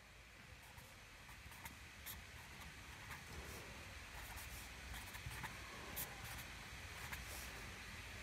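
Faint scratching of a felt-tip pen writing figures on paper, in short separate strokes.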